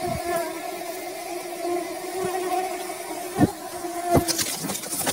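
Honeybee colony buzzing in its nest cavity: a steady, even hum. A few short knocks and rustles of handling come in the second half.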